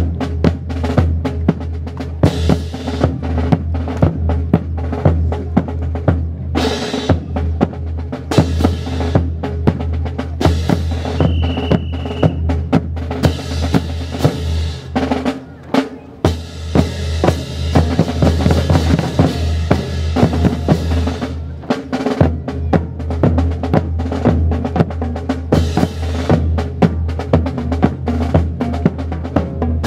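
Rifle drill team working in unison: sharp clacks of hands slapping rifles, rifle butts knocking the ground and boots stamping, in quick rhythmic runs, over a steady low hum.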